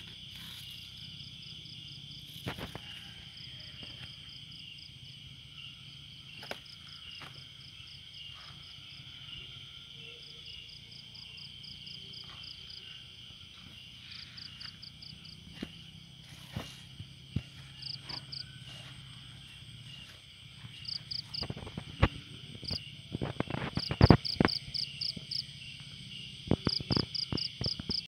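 Crickets chirping at night, a steady high-pitched drone with short bursts of rapid, higher pulses repeating every second or two. In the last third, frequent sharp clicks and rustles close to the microphone break in and are the loudest sounds.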